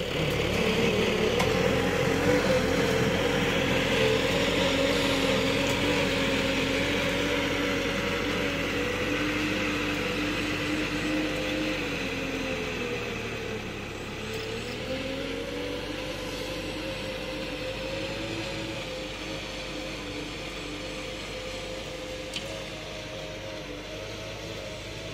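Kubota tractor's diesel engine running steadily under load while pulling a disc plough through the soil, growing gradually fainter as it moves away. Its engine speed dips briefly about halfway through, then picks back up.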